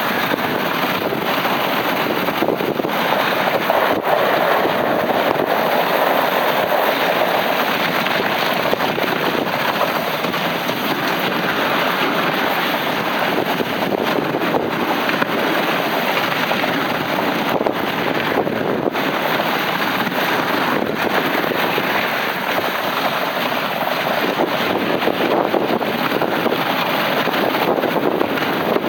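Steady rushing noise of wind on the microphone mixed with the dog sled's runners scraping over icy river trail as the dog team pulls at a run.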